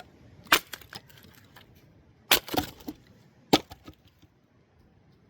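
Axe splitting firewood: three sharp chopping strikes, the second followed by a short crackle of wood splitting, with a few lighter knocks between them.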